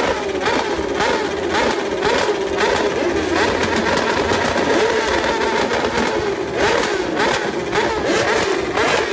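Several sportbike engines revved repeatedly while standing, their pitch climbing and dropping in quick overlapping blips.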